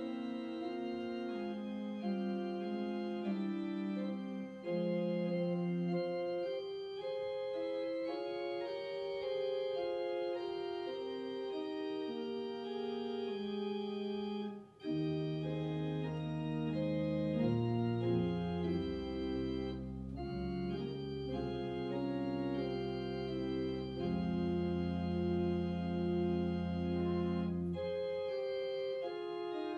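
Organ playing a slow postlude of held chords after the dismissal. After a brief break about halfway through, deep bass notes come in under the chords.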